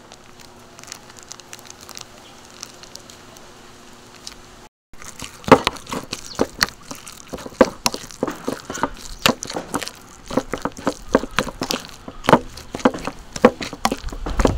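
Metal spoon stirring and mashing grated raw mango with fermented fish paste, onion and chili in a ceramic bowl: quiet at first, then from about five seconds in a dense run of irregular clicks and smacks from the spoon working the sticky mix against the bowl.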